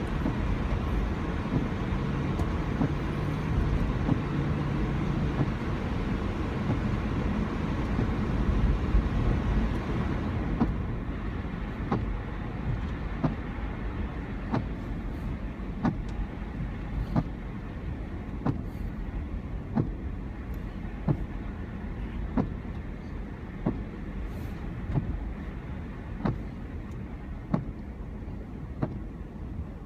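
Cabin noise of a 4x4 driving on snowy roads: steady engine and road rumble, louder for the first ten seconds, then quieter with a sharp click repeating about every second and a half.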